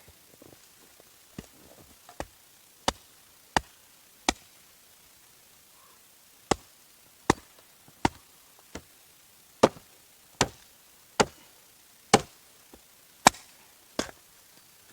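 Wood being chopped with an axe: a series of sharp, regular blows, about one every 0.7 seconds, with a short pause about a third of the way through.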